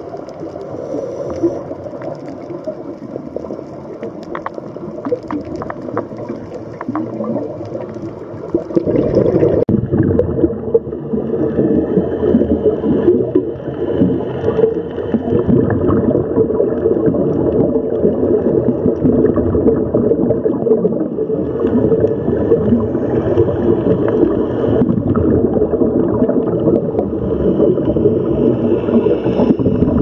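Underwater sound of a scuba dive: bubbling and gurgling of a diver's exhaled air in the water, with faint clicks over the first several seconds. It grows louder and denser about nine seconds in.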